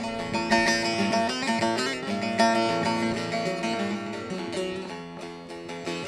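Bağlama (Turkish long-necked saz) strummed briskly, playing an instrumental interlude of a Turkish folk song.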